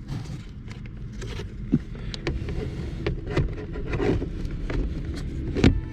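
Scattered plastic knocks, clicks and scraping as a Honda Civic's blower motor assembly is handled and fitted back into its housing under the dash, over a low rumble. The loudest knock comes near the end.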